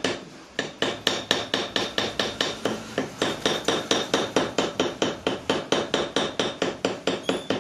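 Fast, evenly spaced knocking, about five strikes a second, starting about half a second in and keeping a steady rhythm.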